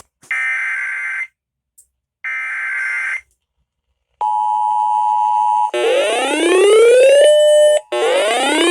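Emergency Alert System broadcast: the last two raspy one-second bursts of the SAME data header, then the steady two-tone attention signal about four seconds in, giving way after a second and a half to a siren-like tone that rises, holds and repeats twice, marking the start of a new warning.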